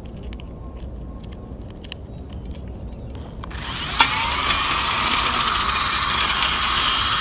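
A few light clicks of handling a cordless drill, then about three and a half seconds in its motor spins up with a short rising whine and runs steadily. The drill has no battery and runs straight off solar panels, turning a threaded rod inside a copper pipe that drives a small propeller.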